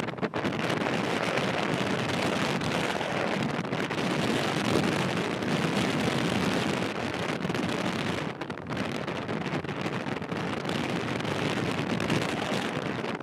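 Boeing 737-800's CFM56-7B jet engines running as the airliner moves slowly along the runway to line up for take-off. Wind buffets the microphone throughout.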